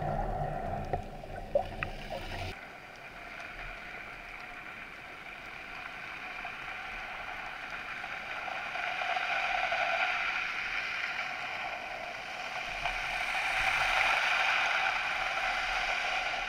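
Water rushing and sloshing against an underwater camera housing, swelling louder twice. A low rumble cuts off abruptly about two and a half seconds in.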